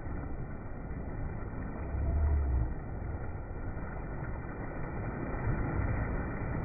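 Surf washing over the shallows, with water splashing as a shark thrashes in the wash. A louder low rumble comes about two seconds in.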